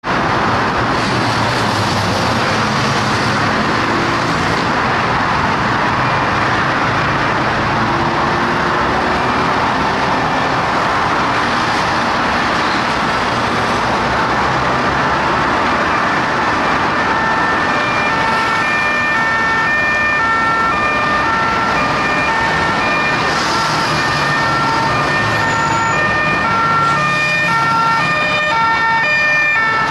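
Heavy motorway traffic noise. About halfway through, French police two-tone (hi-lo) sirens join it, alternating between a high and a low note and strongest near the end as the escort convoy passes.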